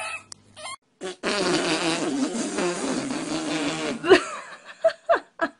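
A long, loud fart lasting about three seconds, wavering in pitch as it goes. It is followed by a few short voice sounds.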